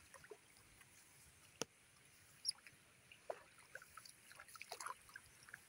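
Near silence outdoors: faint scattered ticks and rustles, a sharp click about one and a half seconds in, and a short high chirp about a second later.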